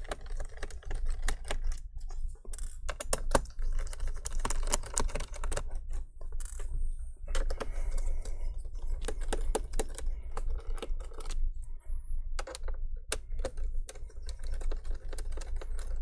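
Phillips screwdriver loosening the screws of a laptop's plastic bottom cover: a quick run of small clicks that keeps going, broken by a few short pauses.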